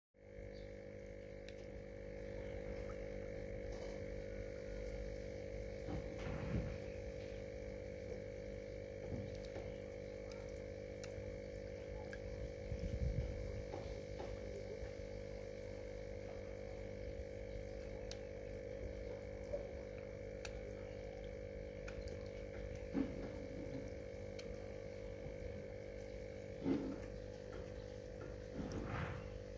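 A steady hum with running water, broken a few times by short splashes as catfish feed at the surface on a floating watermelon slice.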